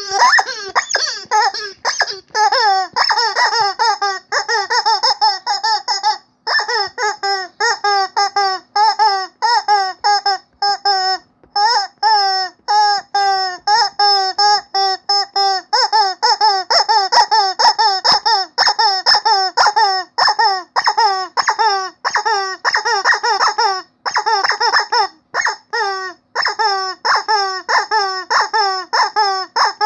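Rubber chicken squeaky toy squeezed over and over: a fast run of short squeaks, about three or four a second, each bending in pitch, with a couple of brief pauses.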